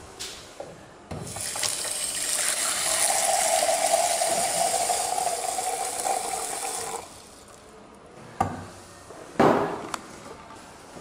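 Water from a laboratory tap running into a glass beaker over sodium hydroxide pellets for about six seconds, then cut off: the caustic soda is being dissolved in water for soap making. Then two sharp knocks as the glass beaker is set down on the bench, the second the loudest.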